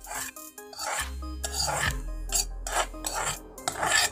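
Metal spoon scraping fried seasoning out of a metal wok into a glass bowl of semolina batter: a run of short, irregular rasping scrapes, about two a second, over a steady low hum.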